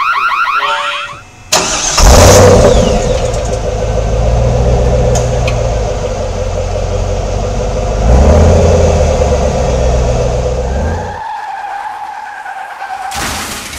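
A loud car engine running and revving, starting suddenly about two seconds in after the music cuts out. The low rumble drops away after about eleven seconds, leaving a thin steady tone.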